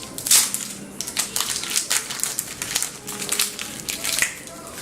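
Trading-card booster packaging being handled and opened: quick crinkling and tearing rustles with short clicks, the loudest about a third of a second in.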